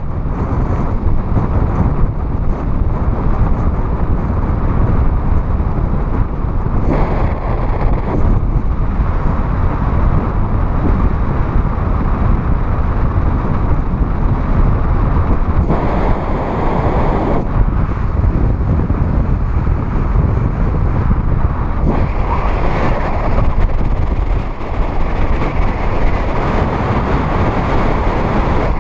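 Wind rushing over the microphone of a camera carried by a paraglider pilot in flight: a loud, steady buffeting roar, harsher during a few stronger gusts.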